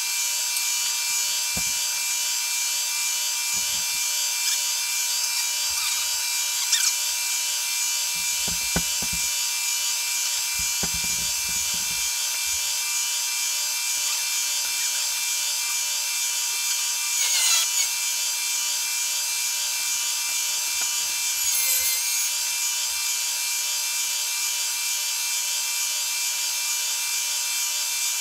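Milling machine running with a steady high-pitched motor whine while machining a wooden block, with short louder bursts about 17 and 22 seconds in.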